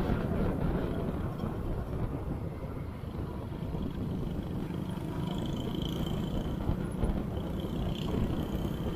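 Motorcycle running on a rough off-road track, a steady low rumble.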